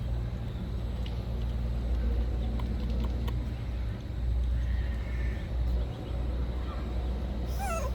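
A steady low rumble with a few faint clicks, and near the end a short, high, wavering squeal from a young monkey.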